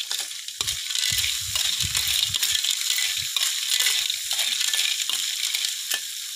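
Stir-fry sizzling in a wok over a wood fire, a steady hiss, with the metal spatula scraping and clinking against the pan as it is stirred.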